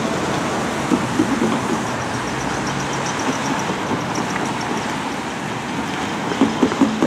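Car tyres hissing on wet pavement as traffic passes, with a few clunks as tyres roll over the rails of the grade crossing about a second in and again near the end.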